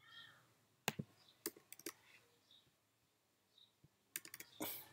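Faint, scattered clicks of computer keys and mouse buttons while code is edited, several close together a little after four seconds in.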